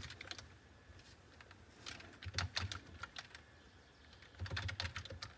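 Typing on a Logitech computer keyboard: three short runs of key clicks as a password is entered.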